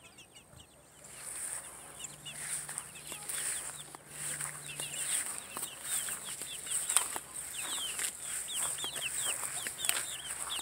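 A flock of young Leghorn chickens cheeping: many short, falling chirps overlapping, thickening a couple of seconds in. A steady high-pitched hiss sits behind them from about a second in.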